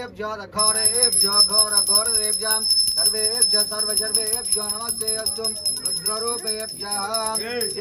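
A brass puja hand bell is rung rapidly and continuously over a devotional song. The bell breaks off for a moment at the start, then carries on.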